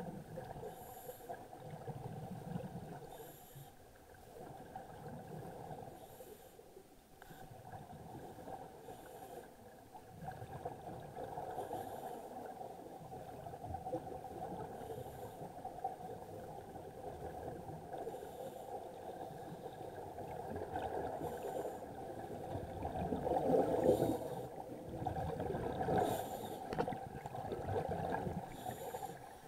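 Scuba regulator breathing heard underwater: short hissing inhalations and bubbly exhalations recurring every couple of seconds over a steady drone, with rougher, louder bubbling near the end.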